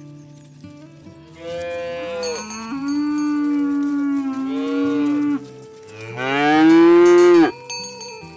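A cow mooing twice: a long moo of about four seconds, then a shorter, louder one near the end.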